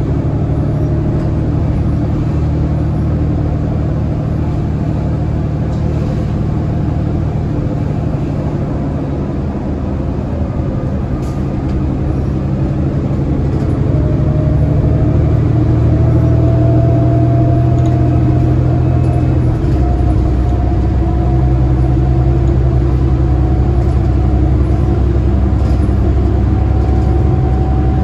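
Cummins ISL9 diesel engine of a New Flyer D60LFR articulated bus heard from inside the cabin as the bus drives, a steady low drone that grows louder about halfway through as it picks up speed, with a thin whine rising in pitch. The engine note changes about twenty seconds in.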